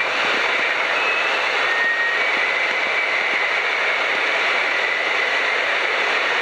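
Piper PA-12 Super Cruiser's engine and propeller running steadily, heard from inside the cockpit as an even drone mixed with airflow noise, with a faint high whine over it.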